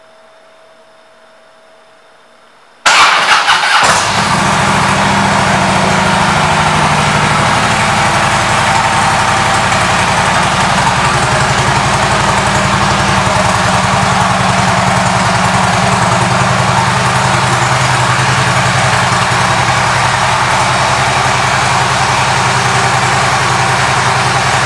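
Harley-Davidson Street Glide's V-twin engine with Vance & Hines pipes being started: after a faint hum, the starter cranks about three seconds in, the engine catches within a second and settles into a steady, loud idle.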